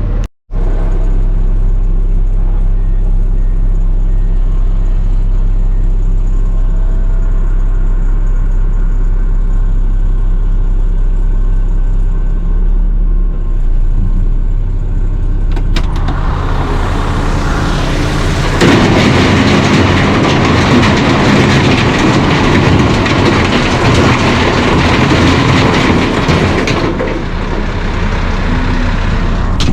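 Mack Granite dump truck's diesel engine idling steadily. About halfway through, large 12-inch rock is dumped into its steel demolition bed, making a loud, dense rattling rush for about ten seconds that eases off near the end.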